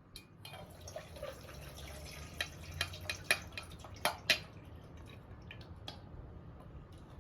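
Water dripping: a run of sharp drips over a light splashing haze, thickest in the middle, the loudest about four seconds in, then they stop.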